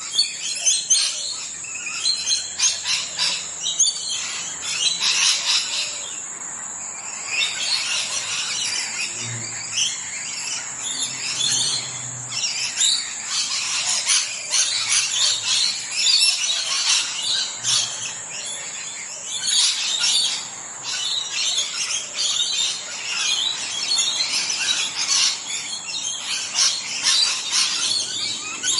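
Parrots calling: a dense run of short, high, overlapping chirps and calls, with a steady high hiss underneath.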